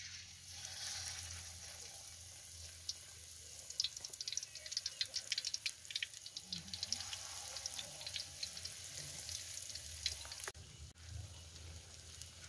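Battered pieces of food frying in hot oil in a steel wok: a steady sizzle with sharp crackling pops and spatters, thickest from about three seconds in.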